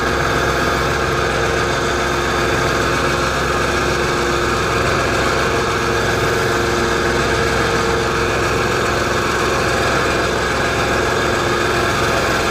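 Electric winch running steadily under load as it winds in its line and hauls an aluminum boat up the loading ramp, a steady whine.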